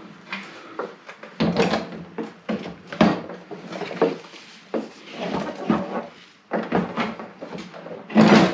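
A Predator 305cc engine being shifted by hand on a snowblower's mounting deck: irregular scrapes, knocks and clunks as its base slides and settles while it is lined up with the mounting holes, with the loudest clunk near the end.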